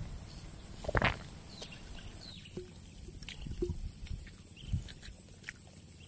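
Close-up chewing and crunching of crispy fried street food, a few sharp crackly bites with the loudest about a second in. A steady high-pitched whine runs underneath.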